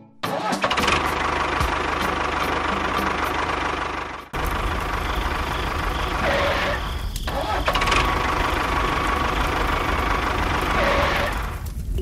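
Tractor engine running steadily; about four seconds in, after a brief dip, a deeper low rumble comes in and continues to the end.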